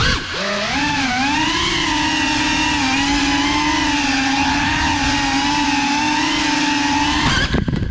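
Small FPV drone's motors and propellers whining in flight, the pitch wavering up and down with the throttle. The whine cuts off abruptly near the end.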